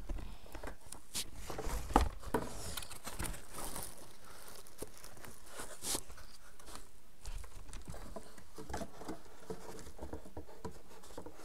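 Rustling, crinkling and light clicks of objects and packaging being handled close to the microphone, with a sharper knock about two seconds in.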